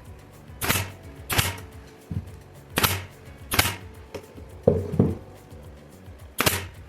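A brad nailer firing brads into wood: about six sharp shots, unevenly spaced, as the pieces of a small wooden box are fastened together one after another.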